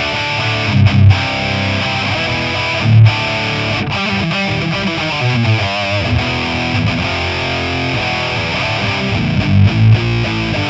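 High-gain distorted electric guitar played through the Amped Dual plugin's model of a 2000s Mesa/Boogie Dual Rectifier on channel 3, heard through a custom cabinet impulse response. The tone is thick and bass-heavy, with loud low chugs about a second in, near three seconds and near the end, and a wavering held note around the middle.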